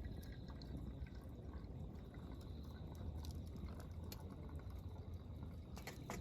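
Campfire crackling: scattered small pops and snaps over a low steady rumble, with no guitar playing.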